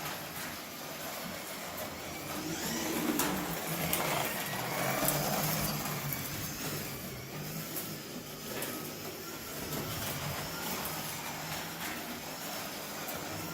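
Carrera electric slot cars running around the track, their small motors whining and rising and falling in pitch as they speed up and slow down, with a few sharp clicks.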